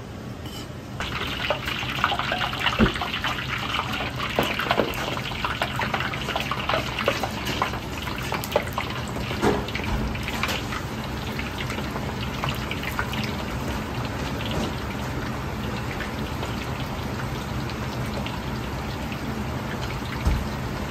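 Chicken breast strips deep-frying in a wok full of hot oil: a dense crackling sizzle that starts suddenly about a second in, sharpest over the first several seconds, then settles to a steady bubbling hiss. A steady low hum runs underneath, and near the end a short thud comes as another handful goes into the oil.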